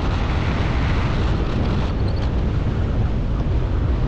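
Steady wind noise from the airflow over the microphone of a paraglider pilot in flight, an even rush heaviest in the low end.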